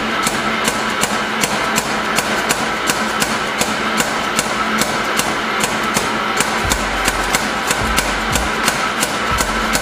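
Sharp metallic hammer strikes repeating evenly, about three a second, over the steady rushing noise of a coal forge fire.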